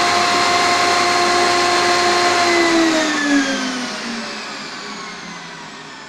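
Three-stage vacuum cleaner turbine motor running with a steady high whine and rush of air, then about three seconds in its pitch starts sliding down and the sound fades as the motor spins down.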